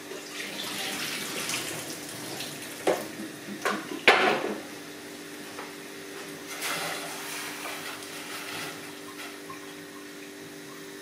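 Kitchen tap running briefly into the sink over a stainless steel colander of shrimp, then a few sharp knocks of the metal colander, the loudest about four seconds in. A faint steady low hum runs underneath.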